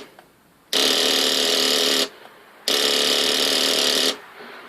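Motorcycle starter solenoid chattering in a rapid buzz, twice, each press lasting about a second and a half, while the engine does not turn over.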